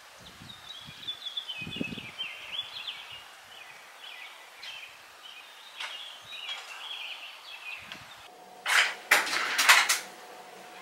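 Small birds chirping and singing for about eight seconds. Then comes a sudden, louder clatter of several quick strokes lasting just over a second as a wooden front door is opened.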